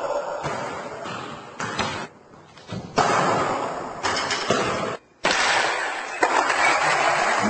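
Skateboard wheels rolling on a smooth indoor floor, in several stretches that start and stop abruptly, with a few sharp knocks from the board.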